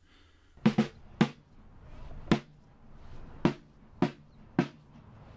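Six sharp single drum strokes keeping the marching beat, each with a brief low ring, spaced about half a second to a second apart.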